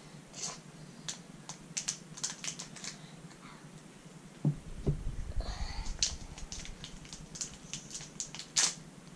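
Scissors snipping into a chocolate bar's wrapper, then the wrapper crinkling and tearing as it is pulled open by hand: a string of sharp clicks and rustles, with a low thump about halfway through.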